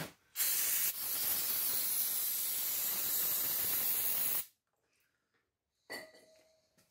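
Aerosol spray can spraying the transmission case: a short hiss, then a long even spray of about three and a half seconds that stops abruptly.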